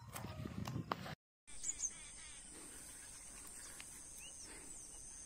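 Rustling with a few clicks for about a second, then a brief dropout. After it comes a steady high-pitched insect drone with scattered short bird chirps.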